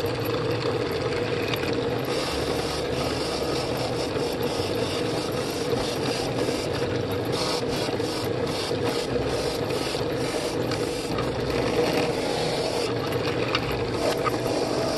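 Drill press motor running with a wire cup brush in the chuck, scrubbing rust off a steel adjustable wrench held against it. A steady motor hum sits under a rough scraping hiss that comes in about two seconds in.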